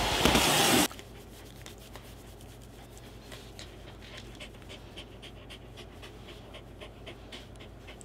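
Canister vacuum cleaner running loudly, cutting off abruptly about a second in. Then a corgi panting in quick, repeated breaths.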